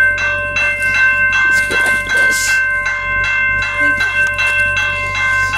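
Railway grade-crossing warning bell ringing steadily at about three strikes a second, its ringing tones carrying over between strikes. The crossing is held activated because a stopped train is occupying it.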